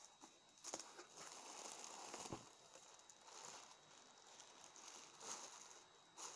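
Faint rustling and scraping of cardboard box flaps and the plastic bag packed inside as they are handled, with a few light knocks.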